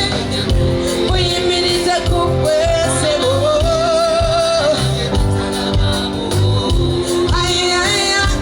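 Live band music with a steady pulsing bass beat and a singing voice over it, holding a long wavering note through the middle.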